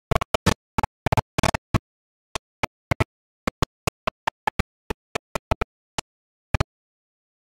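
Computer mouse clicking: a string of short, sharp clicks with silence between them, bunched together in the first two seconds, then single clicks spaced out.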